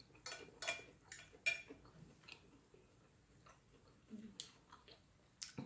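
Close-miked eating sounds: a run of short, sharp clicks and smacks, about four in quick succession in the first second and a half, then a few more spread out.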